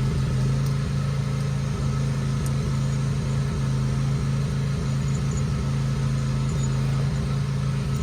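A steady low mechanical hum, like an engine or motor running evenly, with a few faint ticks.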